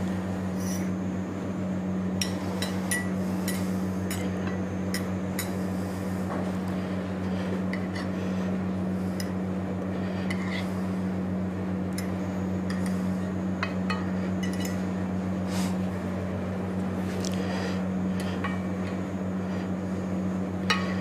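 Scattered light clinks and taps of kitchen utensils against dishes and a cutting board, over a steady low hum.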